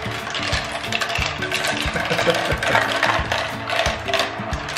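Glass marbles rolling and rattling through a plastic marble run, circling in the funnels and clicking along the tracks, over background music with a steady beat.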